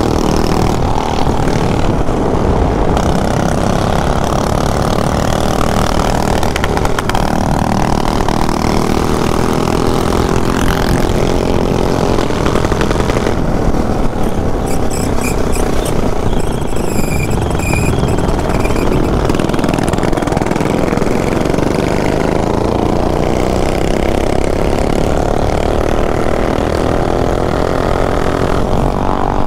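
Mini bike's small engine running at road speed, its pitch rising and falling as the throttle changes, with heavy wind rush on a chin-mounted helmet camera.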